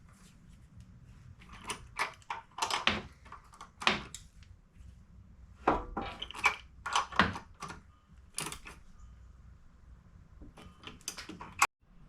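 Irregular metallic clicks and clinks of hand tools and hardware being handled, such as a deep socket being picked out and fitted.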